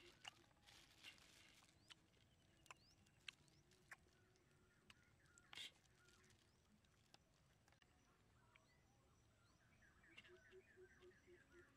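Near silence: faint outdoor ambience with scattered soft clicks and, near the end, a faint rapid run of bird chirps.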